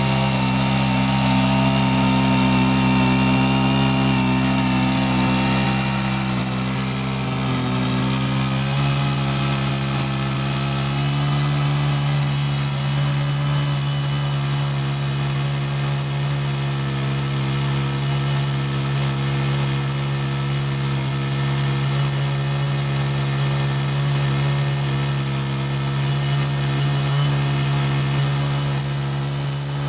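Chainsaw on a chainsaw mill running steadily under load through a large log, its pitch shifting slightly about eight seconds in.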